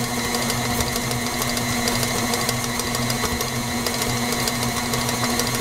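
KitchenAid stand mixer running at a steady speed with an even motor hum, its beater turning through thick cookie dough.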